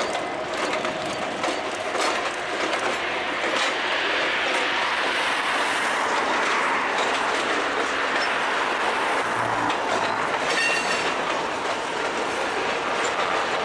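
Freight train passing: boxcars rolling across a short steel bridge, their wheels clacking steadily over the rail joints, with a brief high wheel squeal about ten seconds in.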